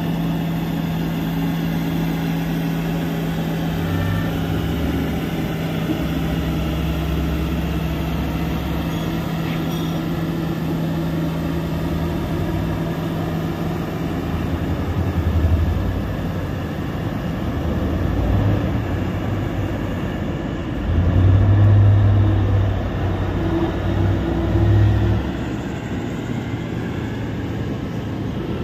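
Large diesel mining machinery running: the steady low engine hum of a Caterpillar 24H motor grader at work, giving way about halfway through to deeper rumbles that swell and fade, as from a large haul truck.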